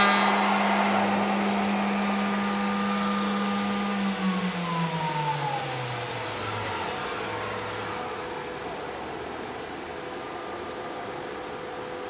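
The 9 kW spindle of a 4-axis CNC aluminium profile machining centre runs with a steady whine, then winds down, its pitch falling from about four seconds in, and the machine's noise sinks to a faint steady hum.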